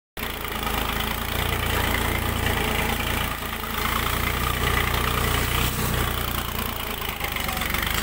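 Tractor engine running steadily while pulling a three-point mounted plough through the soil.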